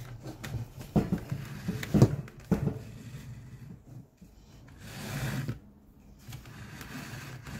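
Hand-stitching a leather scabbard: a few sharp clicks and knocks as the leather and needle are handled in the wooden stitching horse, then, about five seconds in, a brief swish as the waxed artificial sinew is drawn through the punched holes.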